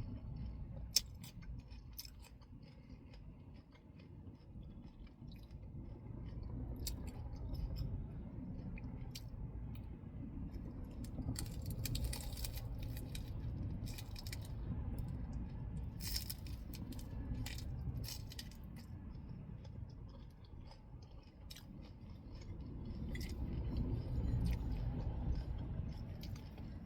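Close-up chewing and crunching of lettuce-leaf tacos, with many short crisp crackles coming in irregular spells over a low rumble.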